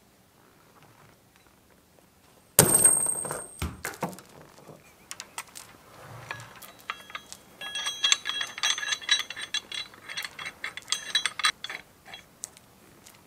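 Steel hook and chain of a chain hoist being hung on a lifting sling. About two and a half seconds in there is a sharp metallic clank that rings, and from about seven to twelve seconds the chain clinks and rattles in quick small strikes.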